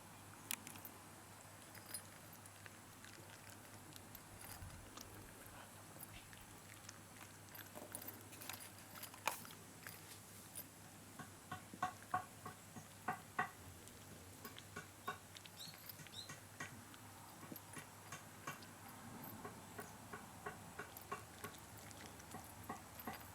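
A shiba inu eating a treat: irregular small clicks and smacks of licking and chewing, coming more thickly about halfway through.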